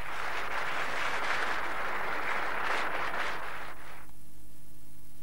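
A burst of rushing noise, about four seconds long, that swells in and then stops, over a steady low electrical hum.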